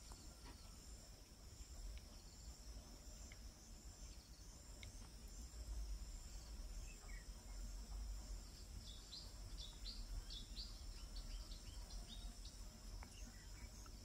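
Faint, steady, high-pitched trilling of insects, joined in the second half by a run of short, quick chirps, over a low rumble.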